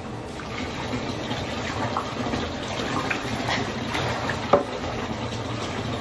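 Bathwater splashing and being scooped and poured with a plastic cup over a wet dog in a bathtub, with a sharp knock about four and a half seconds in.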